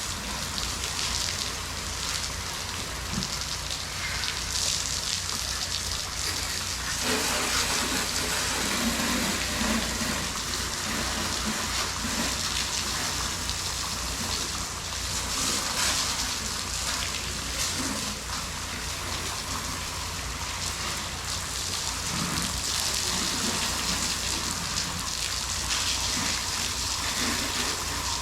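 Pressure washer spray hitting surfaces in a continuous hiss, over a steady low hum.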